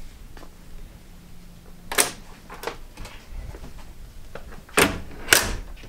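Hotel room door with a keycard lock being opened and shut: a clunk about two seconds in, then two sharper knocks of the handle and latch close together near the end, the last the loudest. A faint low hum stops at the first clunk.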